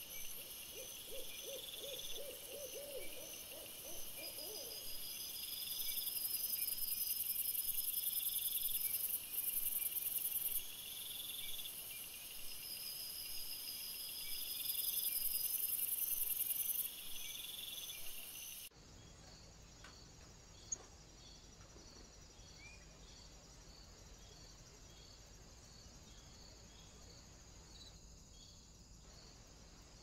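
An owl hooting in one quick quavering run of about ten notes near the start. Night insects trill steadily in high pulsing rhythms throughout and swell louder twice. The audio cuts abruptly at about two-thirds of the way through to a faint insect hum with a single click.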